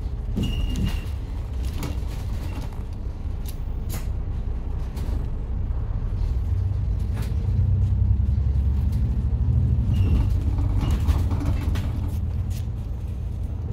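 Interior of a double-decker bus on the move: a steady low engine and road rumble that grows louder about seven seconds in, with scattered clicks and rattles from the bodywork.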